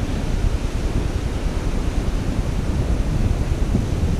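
Strong wind blowing across a head-mounted GoPro microphone that has no proper wind muffler: a steady low rumble with small surges.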